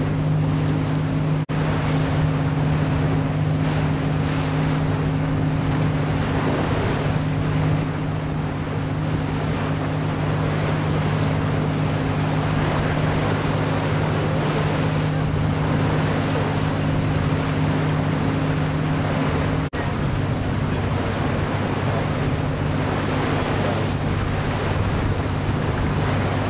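Sightseeing boat's engine running steadily with a low hum, under wind noise on the microphone and the wash of the water.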